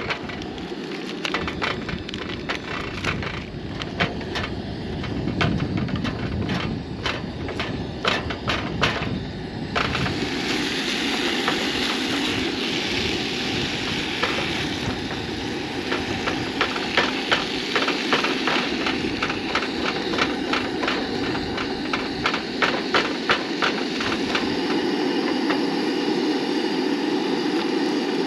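Ground beef sizzling and crackling in a skillet on a propane camp stove, with a spatula scraping the pan as it breaks up the meat. The sizzle gets louder and denser about ten seconds in, as the meat heats through.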